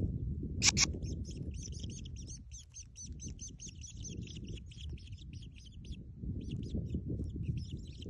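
Grey shrike nestlings begging in the nest: rapid, repeated high chirps from about a second in, thinning out near the middle and picking up again. A sharp click just before the chirping starts, and a low rumble underneath throughout.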